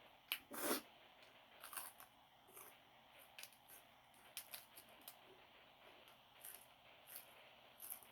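Close-miked chewing of crunchy food, irregular crisp crunches and bites, the loudest about half a second in.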